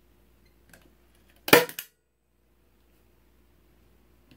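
Manual spring-loaded staple gun firing once into a hardboard backing: a single sharp snap about a second and a half in, with a quick rattle of the mechanism right after it. There are faint clicks shortly before, as the gun is set in place.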